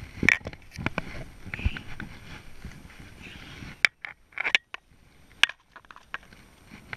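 Handling noise close to the microphone: irregular clicks, knocks and rubbing as fly line is cast and stripped in a small aluminium boat, with brief near-silent gaps about four seconds in.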